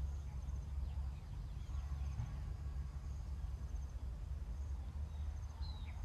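Faint, scattered bird chirps and short high trills over a steady low rumble.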